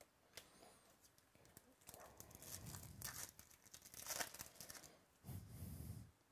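Foil wrapper of a Topps Chrome baseball card pack being torn open and crinkled by hand: quiet, irregular crackling and tearing. It ends with a softer, lower rustle.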